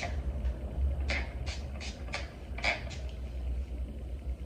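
A TRESemmé heat-protectant pump spray bottle misting onto hair: about six quick sprays in a row, each a short hiss, bunched into the middle of the stretch.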